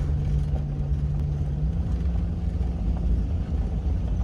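Jeep Grand Cherokee WJ driving along at a steady pace, its engine and road noise making a low steady rumble. The engine note steps up slightly a little under two seconds in.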